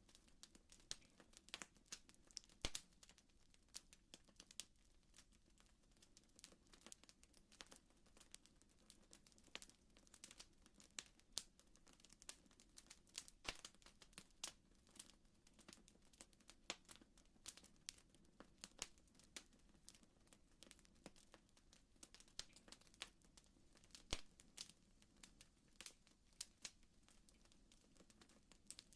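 Faint fireplace fire crackling: irregular small pops and snaps over a low steady rumble.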